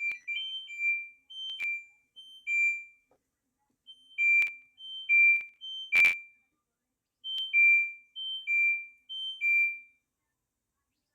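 Electronic control-panel beeps of an LG front-load washing machine: about ten short two-note chirps, each a higher note dropping to a lower one, with a few sharp clicks among them and a pause about three seconds in.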